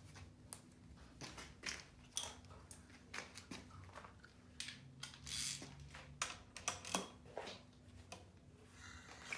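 Scattered light clicks and short scrapes of hand tools on metal, with a faint steady hum underneath, as the crankshaft of the seized BMW N20 engine is tried by hand.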